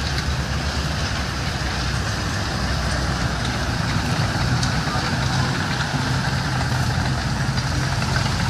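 A German WWII-type armoured half-track with its engine running steadily as it drives slowly past, towing an anti-tank gun.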